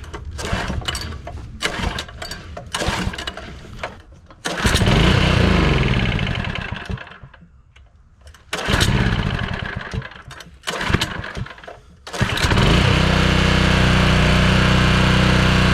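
Craftsman 6.5 hp single-cylinder small engine being pull-started with the choke on. After several pulls of the recoil starter it fires and runs for a couple of seconds, then dies, twice. On further pulls it starts and runs steadily, its compression restored by a new piston ring.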